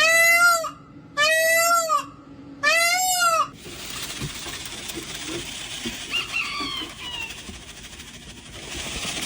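Peacock giving three loud, wailing, cat-like calls, each under a second and rising then falling in pitch. After about three and a half seconds the calls give way to a steady hiss with a few faint chirps.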